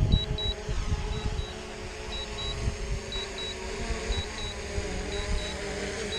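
Quadcopter drone descending to land close by, its propellers making a wavering hum. The remote controller beeps in pairs about once a second during the low-battery auto-landing. Wind gusts buffet the microphone, most strongly in the first second or so.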